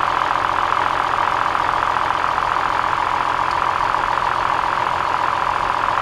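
2003 Toyota Highlander V6 idling with one front ignition coil unplugged, running steadily with no change in speed. Pulling this coil makes no difference because its cylinder is already dead: the coil is bad and is the cause of the misfire.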